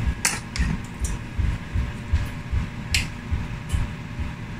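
Sauce simmering on the stove with low, irregular bubbling, a few light clicks of kitchen utensils, and a steady hum underneath.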